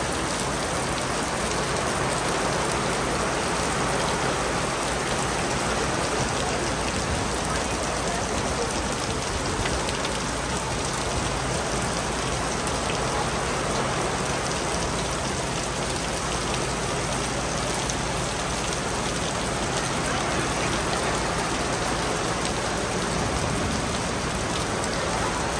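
A rain shower falling steadily, an even hiss of drops.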